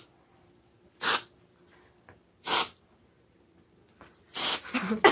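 Aerosol whipped cream can spraying in three short hissing bursts, about a second and a half apart.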